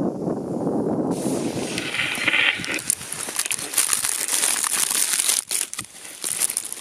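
Clear plastic food wrapping crinkling and crackling as it is handled, in many quick crackles, starting about a second in after a short stretch of low steady noise.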